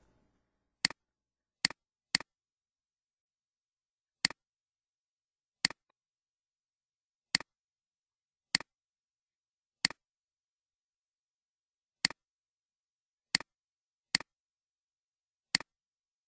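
Computer mouse button clicks: about a dozen single sharp clicks, spaced irregularly one to two seconds apart, with dead silence between them.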